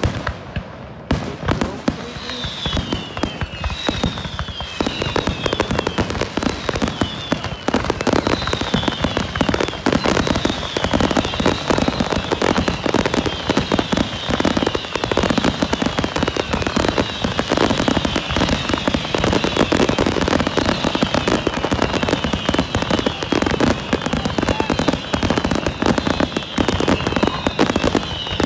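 Aerial fireworks in a dense barrage: rapid overlapping bangs and crackling. From about two seconds in comes a steady train of falling whistles, the bird-like whistling shells.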